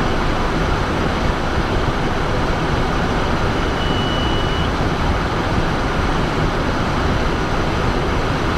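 Steady cockpit noise of a Cessna Citation Bravo in flight: an even rushing of airflow and twin Pratt & Whitney PW530A turbofans. A brief high steady tone sounds for about a second near the middle.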